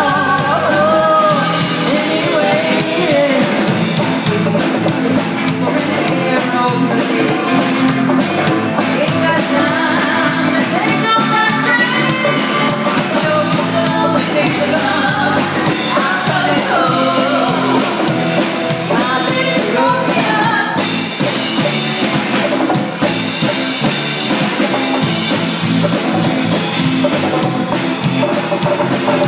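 Rock song with a singing voice over a drum kit and guitar, with a steady beat.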